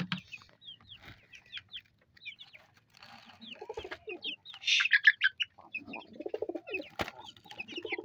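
Mixed bird calls from a coop of chickens and pigeons: many short high chirps that fall in pitch, a louder burst of calls about five seconds in, and low clucking and cooing from about six seconds in, as a hen sitting on eggs is disturbed by a hand reaching in. A single sharp click sounds about seven seconds in.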